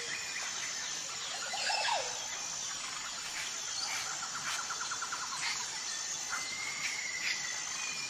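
Birds chirping and whistling over a steady, high insect buzz, with a rapid trill of repeated notes in the middle.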